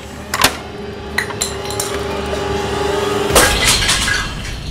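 Hard plastic toy pieces clinking and knocking as they are handled in a plastic box, with a louder clatter about three and a half seconds in. A steady tone runs under the clinks until that clatter.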